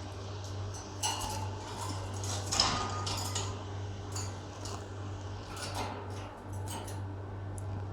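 Lovebirds in their cage during feeding: irregular light clicks and clinks against dishes or wire, with a few short chirps.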